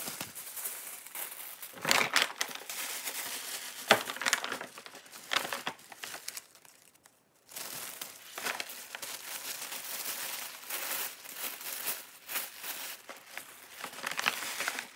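White tissue paper crinkling and rustling as sheets are crumpled and stuffed into a paper gift bag, in uneven handfuls with a pause of about a second around the middle.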